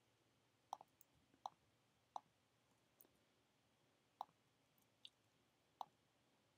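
About eight faint, irregularly spaced computer mouse clicks as spreadsheet cells are selected and dragged, with near silence between them.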